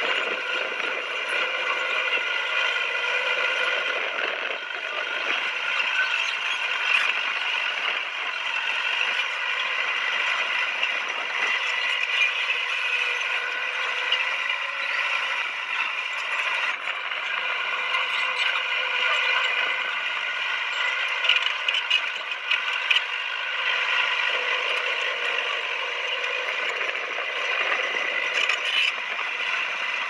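Crawler bulldozer working, with a continuous mechanical clatter of its steel tracks and a steady high whine.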